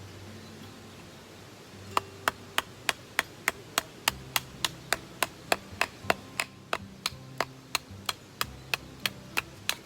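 A fast, even series of sharp knocks, about three a second, starting about two seconds in: some 26 strikes over nearly eight seconds, the first the loudest.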